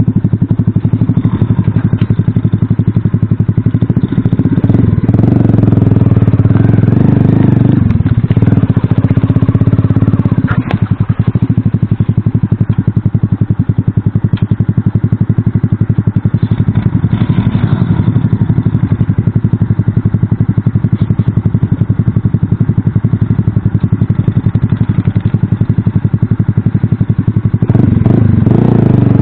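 Small Alpha moped-style motorcycle's single-cylinder four-stroke engine running under throttle over rough forest ground, its revs rising and easing. A knock or clatter comes about ten seconds in.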